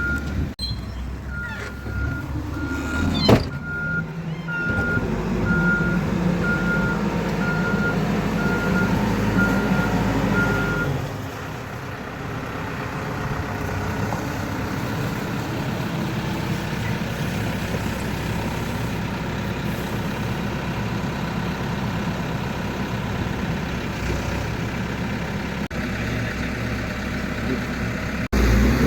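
A vehicle's reversing alarm beeping at an even pace over its running engine, both stopping about 11 seconds in. A single sharp knock comes about 3 seconds in, and a steady rumbling noise continues after the beeping stops.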